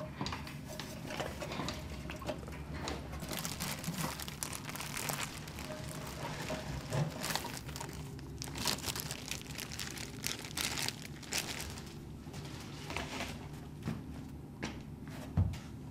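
A plastic bag crinkling and rustling in irregular bursts as a hand handles it, over a low steady hum.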